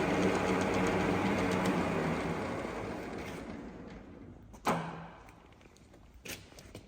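Acer manual engine lathe's spindle and gearing running, then gradually winding down to a near stop after a reverse threading pass. A sharp clunk about two-thirds of the way through and a lighter click near the end.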